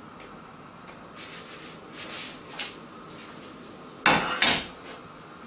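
Scraping in a frying pan as a pancake is worked loose, then two sharp metal clanks of the pan about half a second apart as it is tossed to flip the pancake.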